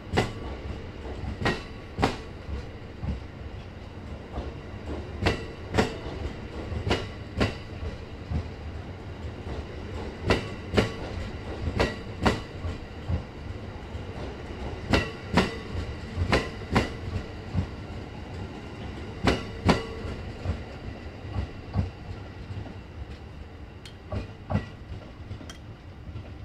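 Cassiopeia sleeper train's E26 series double-deck coaches rolling past with a steady rumble, their wheels clicking over rail joints. The clicks come in pairs, in clusters every four to five seconds as each coach's bogies cross. The sound fades near the end as the last coach draws away.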